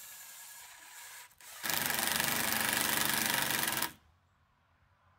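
Cordless impact driver driving a screw through the wooden stair rail into the post: a rapid hammering rattle for about two seconds, starting about a second and a half in and stopping abruptly.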